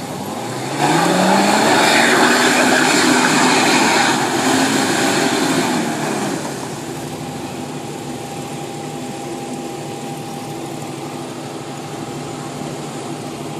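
Off-road 4x4's engine revving hard as the truck pulls through and out of a mud pit: the revs rise sharply about a second in, are held high for about five seconds, then drop to a steady, lower running.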